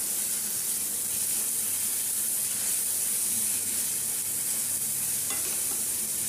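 Chopped onion and ginger-garlic paste sizzling steadily in hot oil in a kadhai over a medium flame, stirred with a wooden spatula: the masala being roasted (bhuna).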